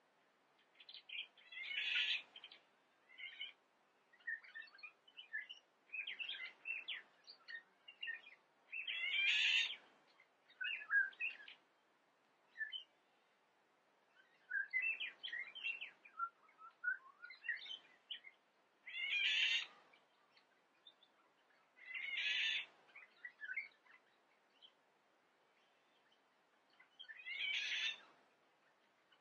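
Songbirds singing: loud, high, chirpy phrases of a second or two recur every few seconds, with softer twittering and short chirps in between.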